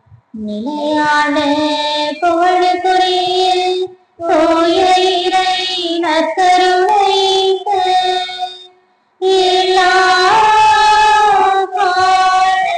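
Female voices singing a church hymn in three long phrases of about four seconds each, with short breaks between them.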